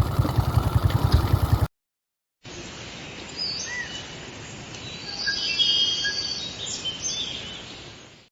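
Birds chirping and whistling with short rising and falling calls, busiest past the middle and fading out at the end. It is preceded by a small engine idling with an even pulse, which cuts off abruptly just under two seconds in.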